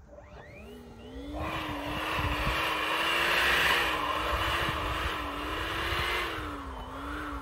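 A latex balloon being filled from a helium canister: a steady gas hiss that starts about a second in and stops near the end, over a low wavering whine.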